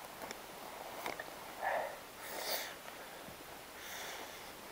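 A person breathing close to the microphone: three soft breaths or sniffs, the first about a third of the way in and the others in the second half, over faint outdoor hiss.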